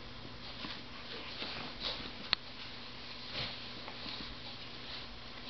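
Maine Coon cat sniffing and rubbing against a sandal on a tile floor: soft sniffs and fur brushing, with one sharp click about two seconds in.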